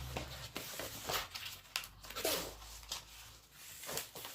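A postal package being opened by hand: irregular tearing and rustling of the packaging in short bursts.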